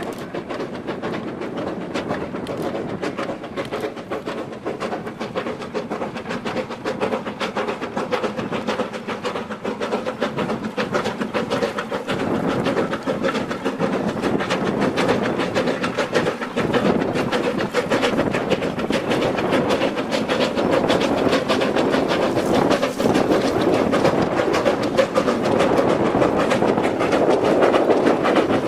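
Narrow-gauge coal train hauled by a C2 steam locomotive, running along the track with continuous wheel and rail noise and rapid clicking, growing louder toward the end.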